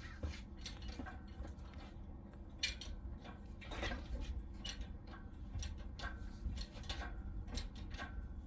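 Engine crane's lifting chain and hardware clinking and rattling as the freed engine hangs from it: scattered light metallic clinks over a low rumble.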